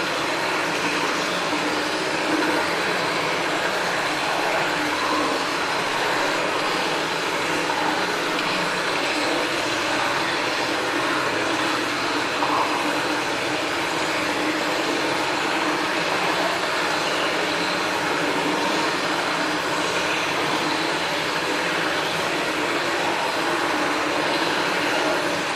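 Cave ambience sound effect: a steady, even wash of noise that holds the same level throughout, with no distinct drips or footsteps standing out.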